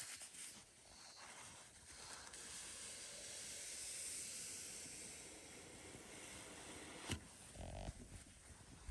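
Paper towel wiping wet stain off a wooden board: a faint, steady rubbing hiss, with a single click about seven seconds in.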